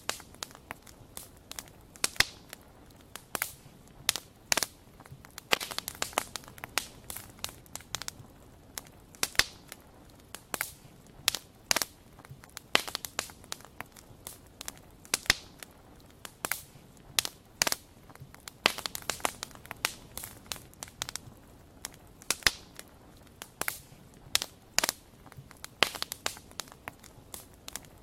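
Wood fire crackling: irregular sharp pops and snaps, several a second, over a faint low hiss.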